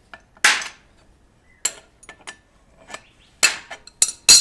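A handful of sharp metallic clinks at uneven intervals, loudest about half a second in and near the end: an adjustable wrench turning the forcing screw of a bearing puller that is pulling the center support bearing off a driveshaft.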